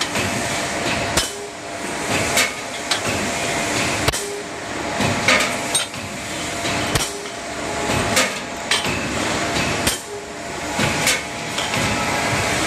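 CNC square-tube punching and cutting machine at work: sharp metallic strikes, about one every second or so, over a steady running noise.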